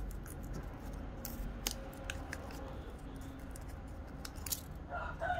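Brittle old paper insulation being peeled and unwound from an electric bell's electromagnet coil: scattered crackles and small sharp clicks, with a brief louder rustle near the end.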